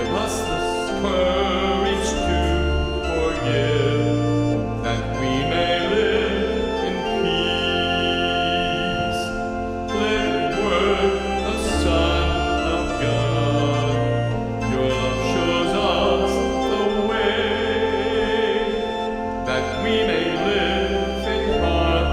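Church organ accompanying a sung communion hymn, the organ's held bass notes changing every second or two under the singing.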